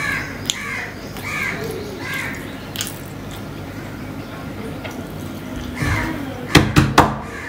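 Close-miked chewing and mouth sounds of a man eating rice and vegetables, then three loud gulps in quick succession as he drinks water from a steel tumbler, about a second before the end.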